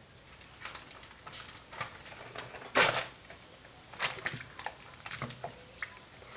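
Sheets of notebook paper crackling and rustling as they are crumpled and torn by hand over a tub of soaking paper pulp for papier-mâché. A string of irregular crackles, the loudest crunch coming about three seconds in.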